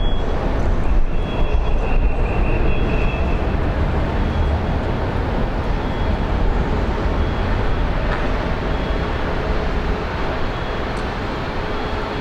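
Steady rumble of a moving vehicle, heavy in the low end, with a faint short high beep repeating about every second and a half.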